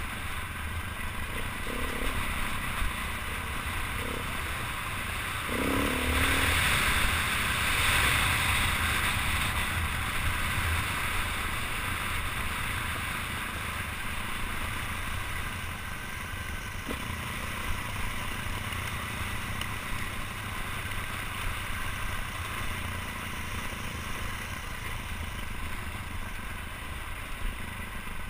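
Dirt bike engine running under way on a rough rocky trail, heard from a helmet-mounted camera, with wind and clatter over the microphone. It gets louder for a few seconds about six seconds in.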